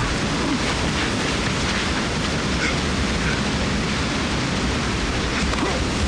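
Steady rushing of a waterfall and white-water river, an even wash of noise.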